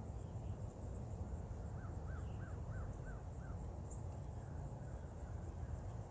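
A bird calling outdoors: a quick run of about six short, arched calls, roughly three a second, over a steady low rumble.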